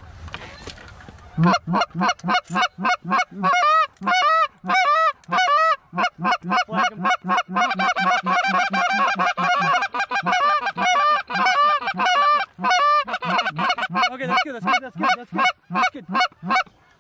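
Hand-blown goose calls honking and clucking in quick, overlapping runs of about four short notes a second, starting a second and a half in after a brief rustle. The calling is meant to bring Canada geese in to the decoys.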